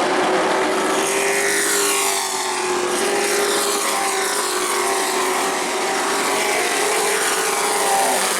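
Racing truck engines running at speed around the track: a steady engine note, with the pitch of passing trucks falling away several times.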